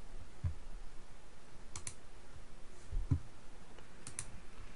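Computer mouse clicks: two quick double clicks about two seconds apart, with a few low thumps, the loudest about three seconds in.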